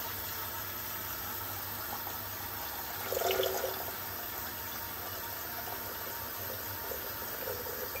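Water running from a kitchen tap into a glass jug, a steady splashing stream as the jug fills, with a brief louder sound about three seconds in.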